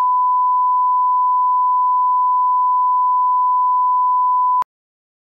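Steady 1 kHz test tone, the reference tone played with television colour bars: one pure, unwavering beep that cuts off suddenly near the end.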